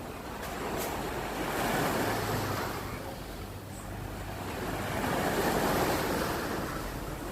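Sea waves breaking and washing on the shore, the surf swelling twice and easing back between.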